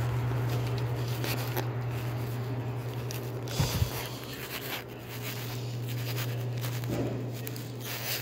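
Footsteps and handling scrapes over a steady low hum, with two sharp knocks a little past midway.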